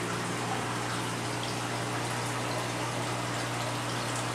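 Aquarium water bubbling and trickling steadily as streams of air bubbles rise through the tank, over a constant low hum of running aquarium pumps.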